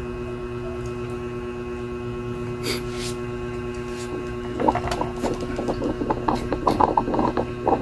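A steady electrical hum, with two short clicks a little before the middle. From just past halfway there is a run of irregular rubbing and clicking.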